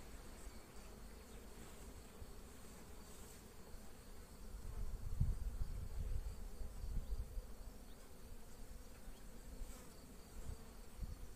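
Honeybees buzzing in a steady, calm hum around an opened hive as a frame covered in bees is held up and turned. Low rumbling noise on the microphone comes and goes, loudest around the middle.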